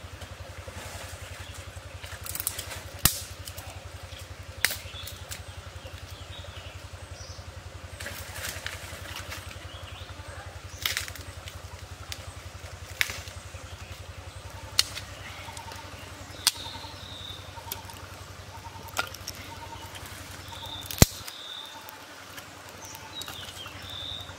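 Dry sticks snapping and knocking, about ten sharp cracks a second or two apart as firewood is broken by hand, over a steady low hum that stops near the end.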